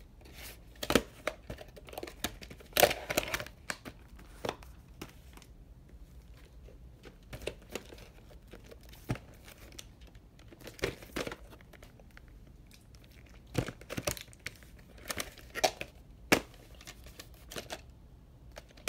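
Handling noise from a plastic clamshell VHS case and the cassette inside it: irregular clicks, taps and rubbing as the case is opened and the tape is taken out and turned over.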